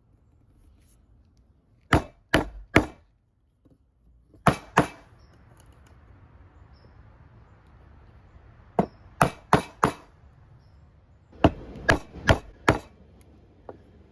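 Mallet striking a chisel, chopping a mortise into wood. Sharp strikes come in quick runs of two to four, about three a second, with pauses between the runs.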